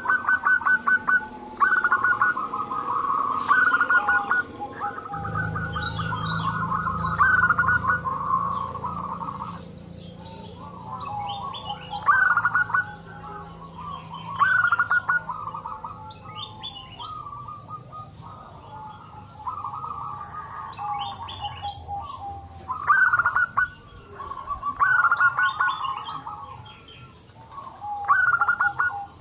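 Several zebra doves (perkutut) singing back and forth, each phrase a quick run of short pulsed coos. The phrases overlap and answer one another throughout.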